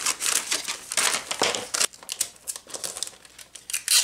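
Gift wrapping paper crinkling and rustling as it is folded and pressed around a cardboard drink carrier. The rustling is dense for about the first two seconds, then thins to scattered crackles, with a sharp, loud rustle near the end.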